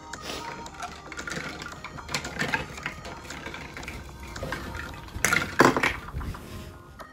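Plastic toy fruits and vegetables clattering and knocking together as a small child rummages through them in a plastic tub, with a louder burst of clatter about five seconds in.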